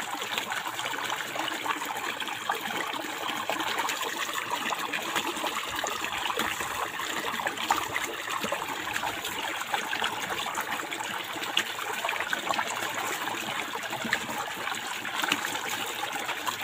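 Water from a hose spraying onto a water buffalo's wet hide: a steady rush of splashing water, dotted with many small droplet hits.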